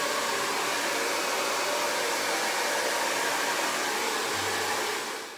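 Hair dryer running steadily, a loud even rush of blown air that falls away near the end.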